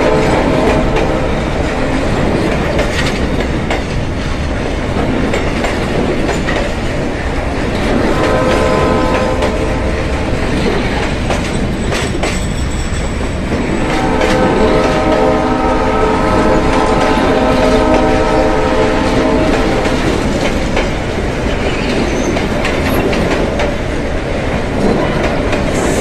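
Narrow-gauge steam locomotive working across a timber trestle, hissing steam from its cylinder drain cocks, with occasional clanks. A whistle sounds in two long blasts, a shorter one about a third of the way in and a longer one past the middle.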